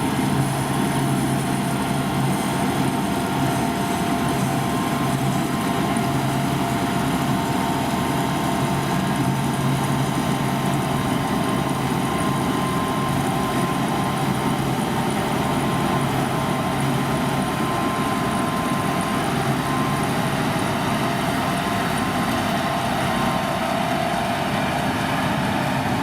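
Combine harvester running steadily, its engine and machinery giving a constant drone with a held hum.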